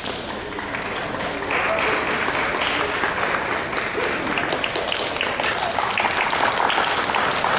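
Audience applauding, the clapping growing louder about a second and a half in, with voices chattering underneath.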